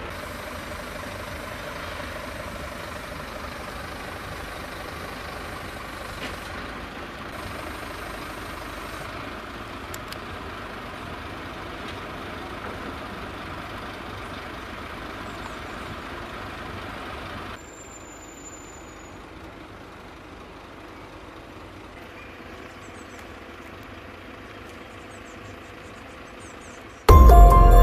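Truck engine running steadily at a low idle. About two-thirds of the way through it gives way to a quieter outdoor background, and music starts at the very end.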